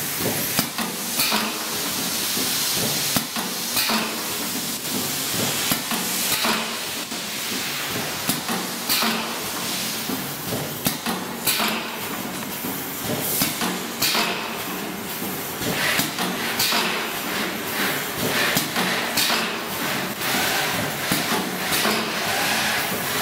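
PM 190H2L vertical sachet packing machine running: sharp, regular clacks about once a second or a little faster from its sealing and cutting jaws, over a steady motor hum and hissing air.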